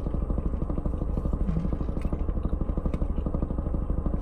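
Car engine idling, a steady low rumble with a fast, even pulse, heard from inside the cabin.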